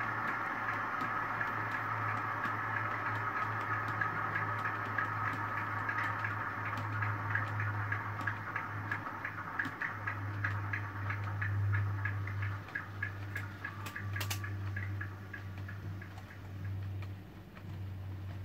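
OO gauge model train running on the layout: a motor whine with the wheels clicking over rail joints about three times a second, over a steady low hum. The whine and clicks fade as the train pulls away, dying out about three quarters of the way through.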